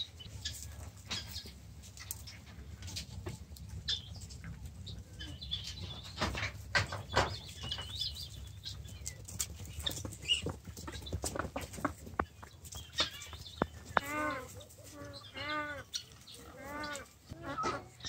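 Peafowl and other farm birds feeding on scattered grain: many scattered sharp taps and clicks, some brief high chirping partway through, and a run of short repeated bird calls, each rising and falling, in the last few seconds.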